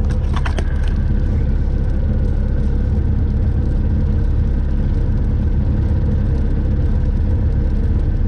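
Light aircraft's piston engine and propeller running steadily, heard from inside the cockpit as a loud, even drone. A few brief high-pitched chirps sound about half a second in.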